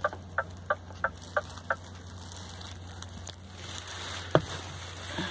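Truck cab warning chime beeping rapidly, about three short beeps a second, stopping about two seconds in. A single sharp click follows a couple of seconds later, over a steady low hum.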